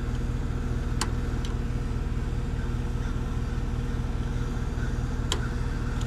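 A steady low machine hum, like a motor or engine running, throughout. Two short sharp clicks come about a second in and near the end.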